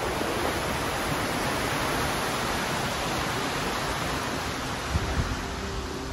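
Shallow stream rushing over rocks below a footbridge: a steady, even rush, fullest in the first few seconds and easing a little toward the end. A few brief low bumps of wind on the microphone about five seconds in.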